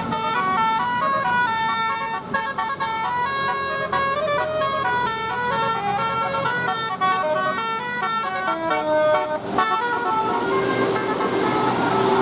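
Bus telolet horn of the Basuri type playing a fast tune of short stepping notes, like a multi-tone musical horn. A little before the end the tune stops and one steady note is held over a hiss.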